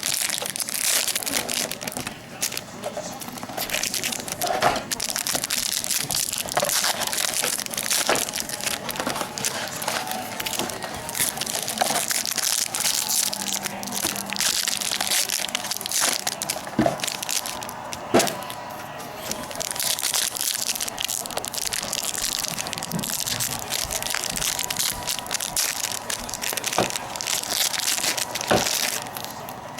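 Trading card pack wrappers crinkling and tearing open as packs from blaster boxes are ripped and handled, with many sharp little crackles.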